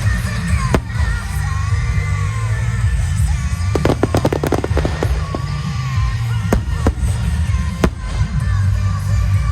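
Aerial fireworks shells bursting with a continuous deep booming, single sharp cracks, and a rapid run of crackles about four seconds in. Music with a sung melody plays throughout alongside them.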